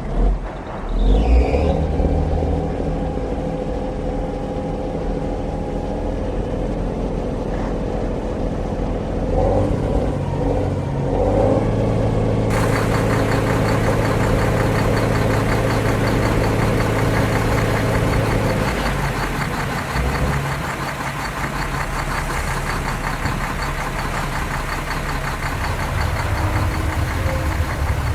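Truck engine running steadily at idle. The sound shifts several times, and a brighter hiss comes in about halfway through.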